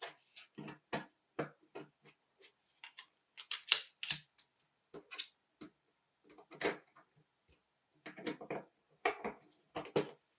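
Irregular light clicks and taps of small metal watch parts and watchmaker's tools being handled, some single and some in quick clusters.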